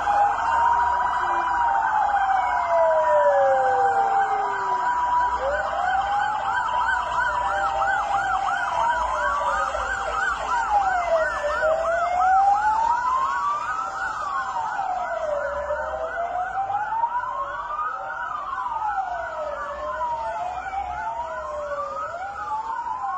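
Several emergency-vehicle sirens sounding at once and overlapping: slow rising-and-falling wails, a fast yelp for several seconds in the first half, and a two-tone hi-lo. They grow fainter in the second half as the vehicles drive away.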